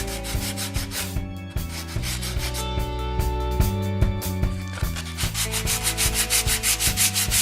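Sandpaper rubbing on wood in quick, even back-and-forth strokes, about five a second: sanding the wooden parts of a caboose roof before priming.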